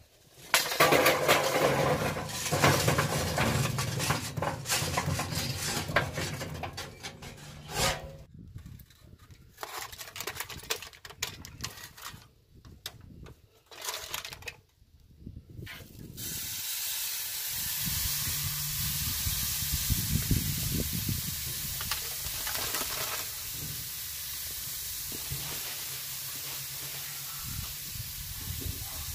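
Irregular scraping and clattering with abrupt breaks as lit charcoal is dumped into a grill's charcoal basket. About halfway through, a steady high sizzle starts: a fajita-seasoned beef inside skirt steak searing on the grate over direct charcoal heat.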